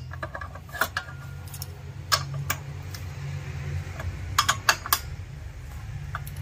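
Scattered sharp metallic clicks and clinks from a socket tool on the bolts as a brush cutter's clutch shoes are tightened down.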